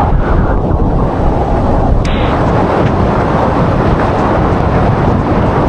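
Loud, steady rushing and splashing of water. The noise turns brighter and hissier about two seconds in.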